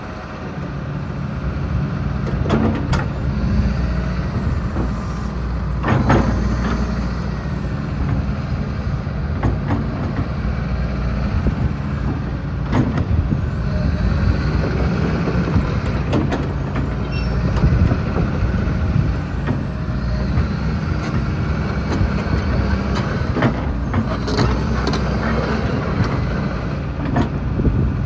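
A 2012 John Deere 225D excavator's Isuzu diesel engine running, picking up speed over the first couple of seconds and then holding steady, with scattered sharp knocks over it.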